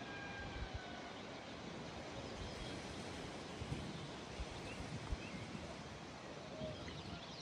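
Steady outdoor background noise with faint bird calls, mostly in the first second, and a few soft low thumps.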